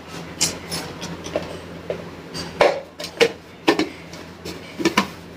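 Irregular plastic clicks and knocks of a hand-held vegetable chopper being handled and fitted together, some sharp hard taps among them.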